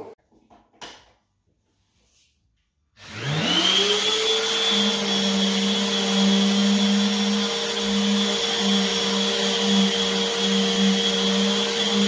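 A DeWalt orbital sander and the Vacmaster 20-litre wet and dry vacuum hosed to it start about three seconds in, spinning up together with a rising whine, then run steadily while the sander works a wall.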